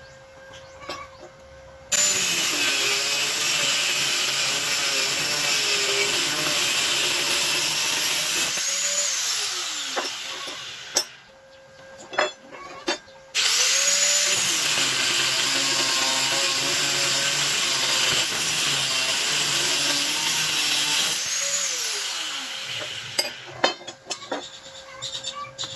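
An electric rotary power tool runs twice for about eight seconds each time. It starts abruptly and winds down with a falling whine after it is switched off. A few sharp clicks and knocks follow near the end.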